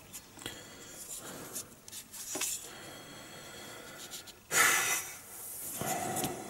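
Faint handling of plastic model-kit parts: small rustles and clicks as the fuselage half is pressed and turned. About four and a half seconds in, a short, loud exhale through the nose.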